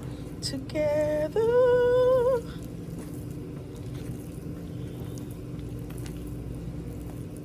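A woman humming two long held notes about a second in, the second lower and slightly wavering, over a steady low background hum.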